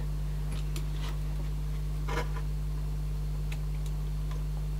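Faint, scattered clicks from fingers handling the small plastic parts of a cassette deck's tape transport mechanism, the clearest about two seconds in, over a steady low electrical hum.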